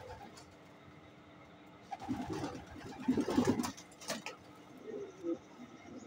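Racing pigeons cooing in low, pulsing calls. The cooing is louder and busier from about two seconds in, with a few sharp rustles or knocks, then softer coos near the end.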